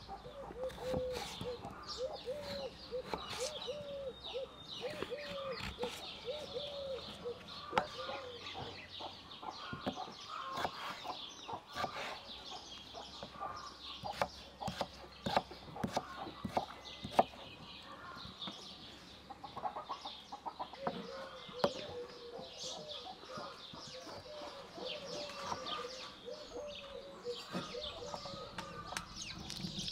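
Hens clucking in runs of short repeated calls, mixed with sharp knocks of a kitchen knife cutting through a raw potato onto a wooden chopping block. The clucking comes at the start and again in the last third; the knife knocks are the loudest sounds, scattered through the middle.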